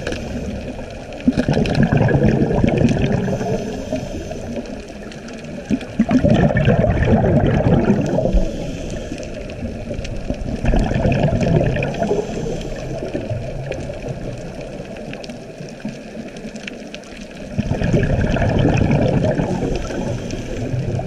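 Scuba diver's exhaled bubbles rushing past the camera underwater, in about four bouts of a few seconds each with quieter stretches of underwater hiss between them.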